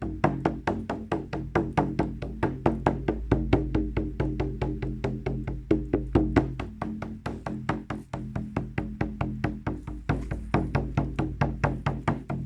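A drum beaten in a fast, steady, even beat, about six strokes a second, over a low steady hum.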